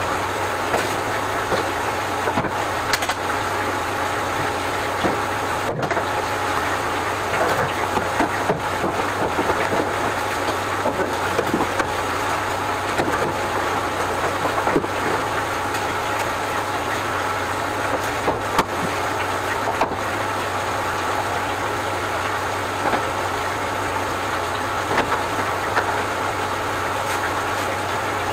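An electric motor running steadily, with a low hum and a faint whine, broken by scattered short clicks and knocks.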